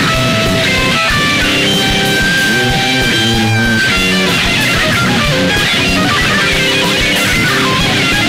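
Live rock band playing loud: an electric guitar plays a fast lead melody over drums, with bent, wavering notes about three seconds in. Heard through a concert PA from the audience.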